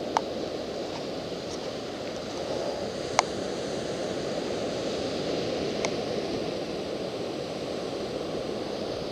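Steady rush of ocean surf breaking on a sandy beach, with three brief sharp clicks.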